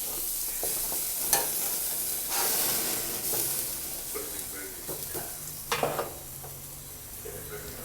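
Burger patties sizzling as they cook over high heat, a steady hiss with a few sharp clicks.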